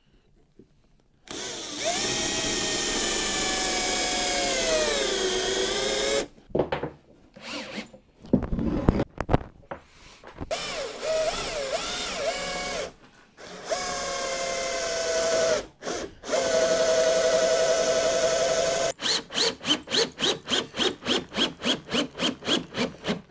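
Cordless drill-driver running in bursts as it drives into plywood and wood: a first run of motor whine about five seconds long that drops in pitch near its end, then several shorter runs, and near the end a rapid pulsing about five times a second.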